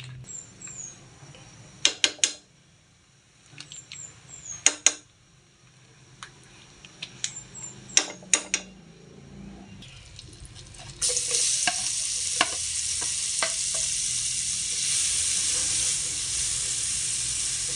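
A few sharp clacks of kitchen utensils, then about eleven seconds in a loud, steady sizzle starts as sliced red onions fry in melted margarine in a frying pan, stirred with a spatula.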